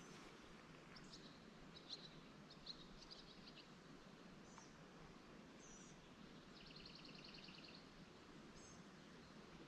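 Near-silent outdoor quiet with a steady faint hiss, broken by faint high bird chirps and, a little past the middle, a short rapid trill of repeated notes.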